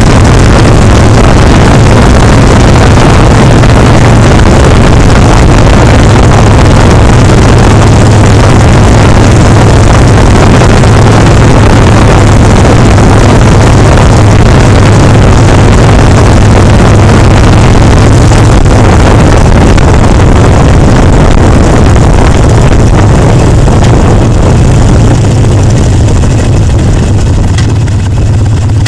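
Harley-Davidson Sportster Seventy-Two's V-twin engine running at a steady cruise through loud pipes, mixed with heavy wind rush on the microphone of a bike-mounted camera. The sound eases off slightly near the end.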